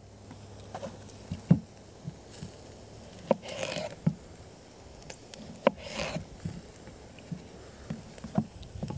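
A folding knife cutting a cucumber into strips on a wooden cutting board: scattered light knocks of the blade and cucumber on the board, with two longer slicing sounds about three and a half and six seconds in.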